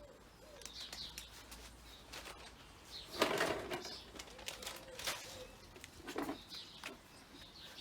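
Garden birds at a feeder: wings flapping and a pigeon cooing faintly, among scattered small clicks, with one louder rustle about three seconds in.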